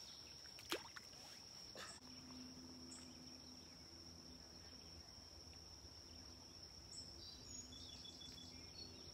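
Faint, steady high-pitched insect chorus, with a faint low hum joining about two seconds in and a single click just under a second in.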